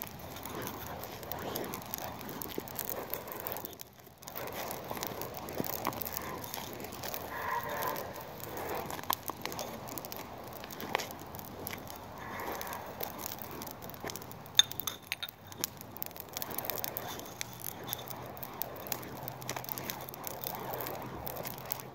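Coal nunchucks being spun: cages of burning lump charcoal whirled through the air, a steady noisy rush that swells and fades, with scattered small clicks and one sharp click about fifteen seconds in.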